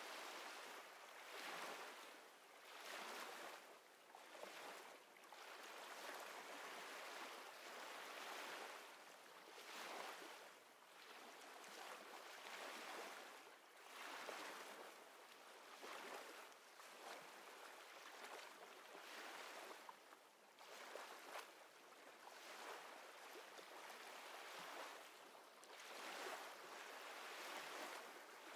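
Faint, soft rushing noise that swells and fades every one to two seconds, with no pitch and nothing below a low hum.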